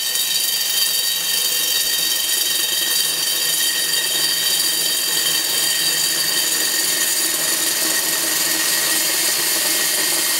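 AGP 1800 W handheld diamond core drill running in first gear with percussion off, wet-cutting a hole in a slab with water fed to the core bit. A steady motor whine with several high tones over a hiss.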